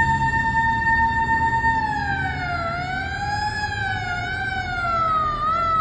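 A fire engine's YD mechanical motor siren wails at a steady high pitch. After a couple of seconds the pitch falls, wobbling up and down as the rotor winds down. A truck engine rumbles low underneath.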